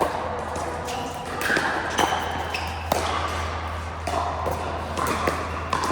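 Pickleball paddles hitting the ball: a handful of sharp pocks at irregular intervals, the loudest two about a second apart near the middle.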